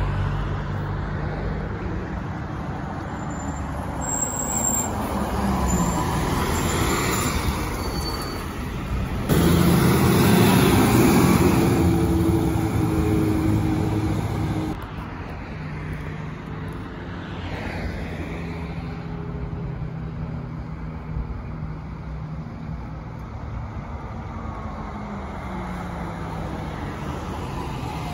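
Road traffic with articulated city buses driving past, their engine notes rising and falling as they go by. The sound gets suddenly louder about nine seconds in and drops back just before fifteen seconds.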